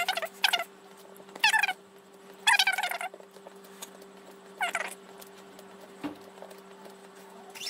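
A cat meowing, about five short calls in the first five seconds, some bending down in pitch, over a steady low hum.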